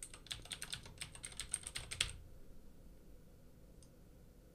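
Typing on a computer keyboard: a quick run of keystrokes that stops about two seconds in.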